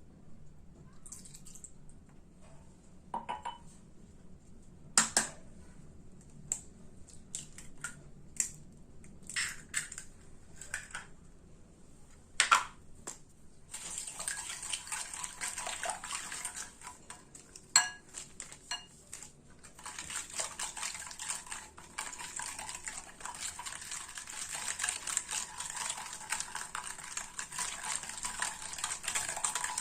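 Scattered clinks of a utensil and containers against a mixing bowl, then from about halfway a rapid, continuous clicking and scraping of a utensil beating dough ingredients in the bowl.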